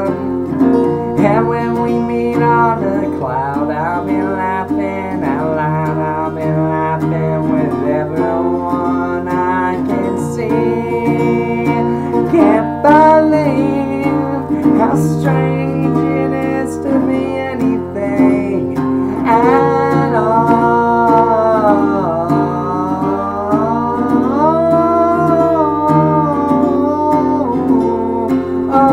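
Acoustic guitar strummed steadily, with a man's voice singing a gliding melody over it.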